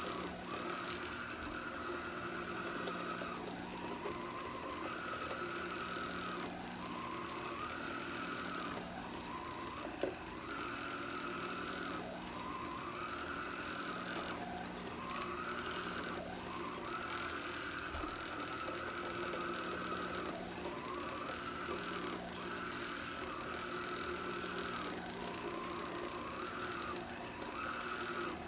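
Black and Decker 4.8 V Dustbuster cordless sweeper running on carpet: a small battery motor hums steadily under a higher whine. The whine rises and falls in pitch about every two seconds as the floor head is pushed back and forth.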